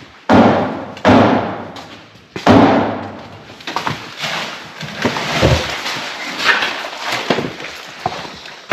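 Cardboard boxes of car parts being moved and set down: three heavy thuds in the first two and a half seconds, then a run of lighter knocks and rustling.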